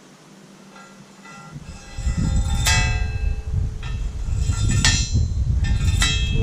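Steel parts striking each other three times, each strike ringing out with a bright metallic tone. A low, uneven rumble sets in about a second and a half in and carries on underneath.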